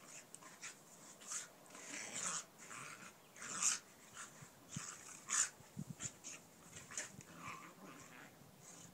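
An American Mastiff and a Mini Australian Shepherd play-wrestling, heard as irregular short breathy huffs and scuffling noises. The loudest come about three and a half and five and a half seconds in.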